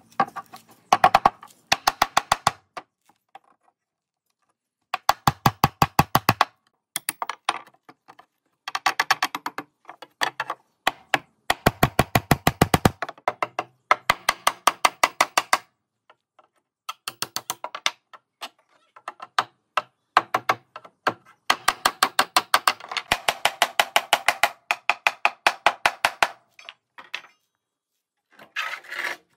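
Rapid wooden knocking, about eight strikes a second, in bursts of one to two seconds with short pauses, as a mallet drives a carving chisel into hardwood.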